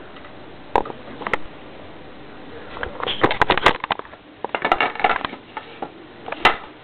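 Handling noise: irregular clicks, knocks and rustles, thickest in two clusters in the middle, with one sharp click near the end.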